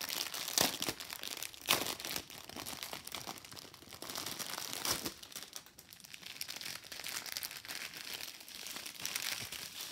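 Clear plastic packaging crinkling and crackling as hands pull at it and handle the small bags of diamond-painting drills inside, with a few sharper crackles.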